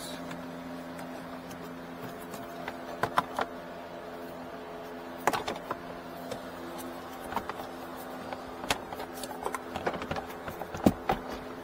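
Hard plastic dashboard trim panels being handled and pressed back into place: scattered clicks and knocks, the sharpest about three seconds in and near the end, over a steady hum.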